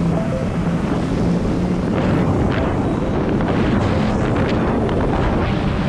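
Supercharged engine of a Kawasaki Jet Ski Ultra 310 running steadily under way, with wind buffeting the microphone.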